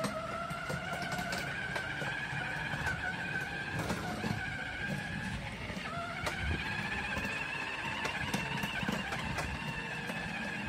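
Battery-powered ride-on toy motorcycle's electric motor and gearbox whining steadily as it drives, the pitch dipping about halfway through and climbing again. Faint clicks and crackles come from the plastic wheels on pebbled paving.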